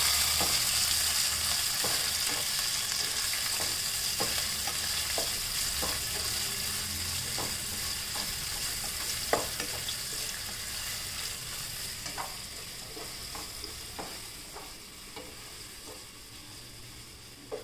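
Chopped green capsicum sizzling in oil in a nonstick pan, stirred with a wooden spatula that knocks and scrapes against the pan about once a second. The sizzle fades gradually.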